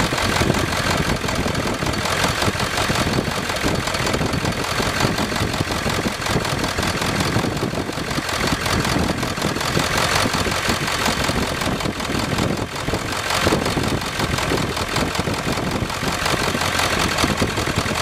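Ford 7.3 Powerstroke V8 turbodiesel idling with its diesel knock, while its injectors are switched off one at a time with push-button switches. This is a cylinder-by-cylinder contribution test to find a weak or misfiring cylinder.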